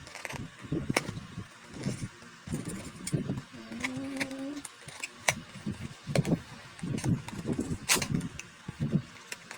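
Cardboard box and packaging being opened by hand: repeated sharp clicks and rustles over a low, uneven rumble.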